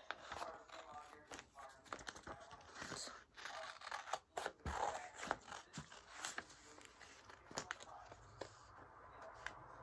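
Scissors cutting out a piece of paper: a run of irregular snips with paper rustling, thinning out over the last couple of seconds.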